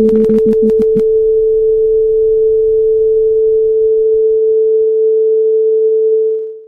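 A loud, steady electronic tone, like a test tone or dial tone, with a quick run of typing clicks during the first second. The tone fades out near the end.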